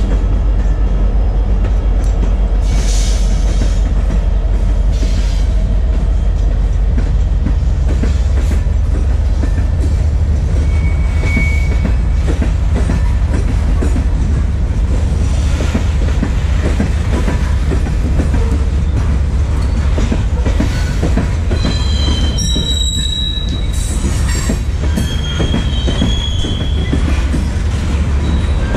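BNSF coal train passing close by: the diesel rumble of an SD70MAC locomotive in cream-and-green Executive paint at first, then loaded coal hoppers rolling by with steel wheels clicking over the rails. High wheel squeal comes in during the last quarter.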